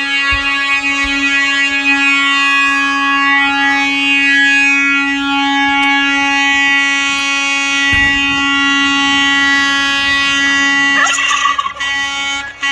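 Air horn sounding in one long, unbroken blast, a steady loud tone. A brief rising sound cuts in near the end.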